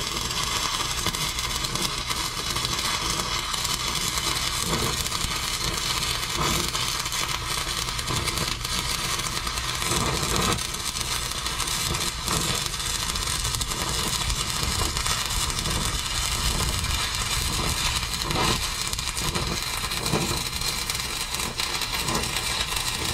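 Stick-welding arc from a 1/8-inch E6010 electrode at 88 amps, making a steady, dense crackle while laying the root pass on a steel pipe-to-deck joint.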